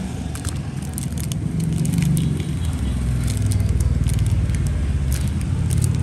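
Clear plastic bags crinkling and chrome Zippo lighter cases clicking as they are picked up and sorted by hand, over a steady low rumble.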